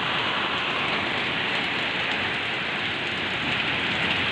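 Heavy typhoon rain pouring down steadily, driven by strong wind.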